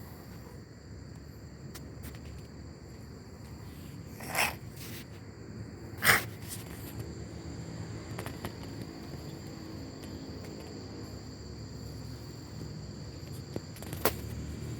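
A pet coughing: two short coughs about four and six seconds in, the second one louder. A sharp click comes near the end, over a steady high-pitched whine.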